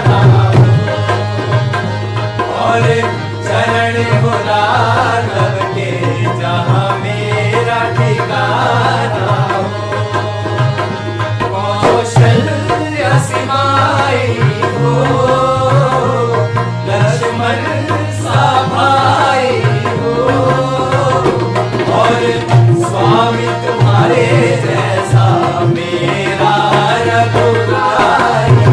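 Hindi devotional song music: drumming keeps a rhythm over a steady low bass, under a wavering melody line.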